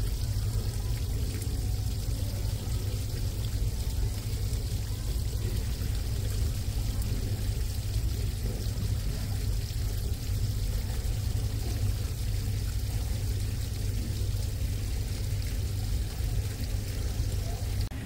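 Small indoor waterfall: water pouring steadily off a rock ledge and splashing onto pebbles below.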